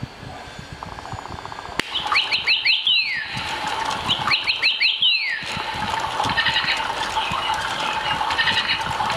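Sound-activated electronic toy bird chirping: two quick runs of about five chirps each, every run ending in a falling sweep, followed by a steady hum and hiss.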